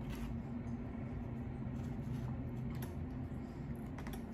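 A plastic fork clicking and scraping in a styrofoam takeout container while eating: a few faint clicks near the start, a couple in the middle and two more at about four seconds, over a steady low hum.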